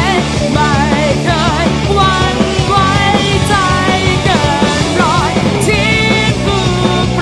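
Rock song playing, with a singing voice over a full band.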